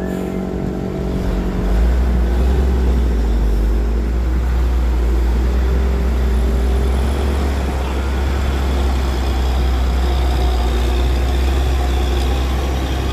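A loaded Hino truck's diesel engine pulling at low revs through a steep hairpin climb: a deep, steady rumble that swells about two seconds in and then holds.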